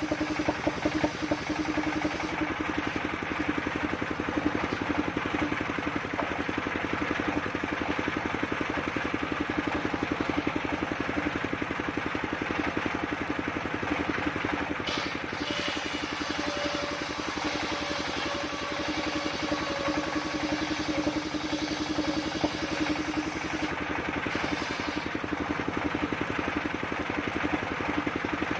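The engine of a mobile circular sawmill running steadily, a constant fast pulsing drone.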